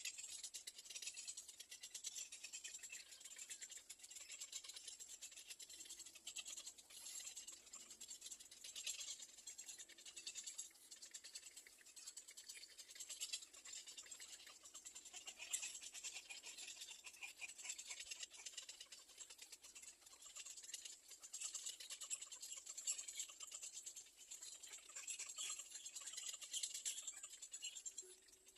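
Faint, continuous scratchy rustling and rattling of birds moving in a nest.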